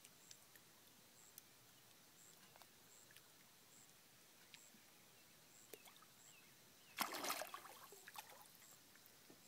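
A single sudden splash at the pond surface about seven seconds in, with a few smaller drips and ticks after it, from a catfish breaking the water. Otherwise near silence, with a faint high chirp repeating about twice a second.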